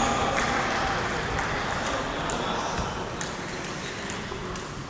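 Table tennis balls ticking on tables and bats in a large, echoing sports hall: a few scattered, faint clicks over the hall's background noise.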